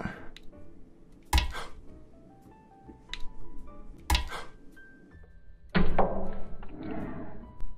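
Thin rubber balloon skin around a ball of pudding being pricked with a metal skewer: two sharp snaps about 1.4 and 4 seconds in, then about six seconds in a sudden louder rush as the skin splits and slides back off the pudding. Light background music plays underneath.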